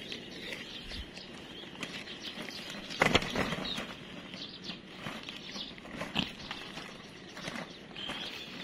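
Rustling and handling sounds with a sharp knock about three seconds in, over light outdoor background noise.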